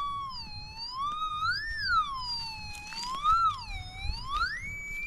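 Metal detector's tone wavering up and down in pitch as it is swept over the ground, responding to buried metal, then rising and holding a steady higher note near the end. The detector is set on its low sensitivity setting.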